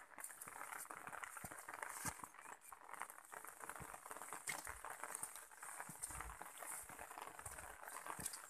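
Footsteps on a stony dirt path, with light irregular crunches and knocks and the swish of wet grass brushing past.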